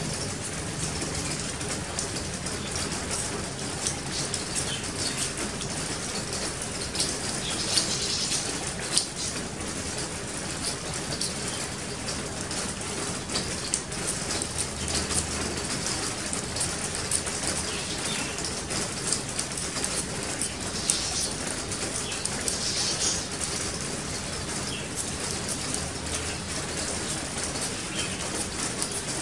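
A metal striker scraped again and again down a ferrocerium fire-starter rod, throwing sparks at cotton tinder: short, irregular rasping scrapes over a steady background hiss.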